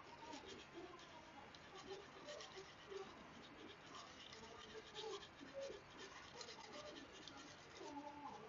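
Steel santoku blade being stroked by hand across a wet whetstone, a faint, steady run of short scraping strokes as the edge is ground.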